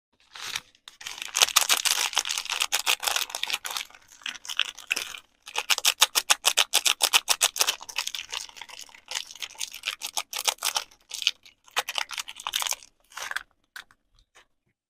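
Soap packaging handled close to the microphone: rapid, crisp crinkling and tapping in dense runs, with a few brief pauses, stopping about a second before the end.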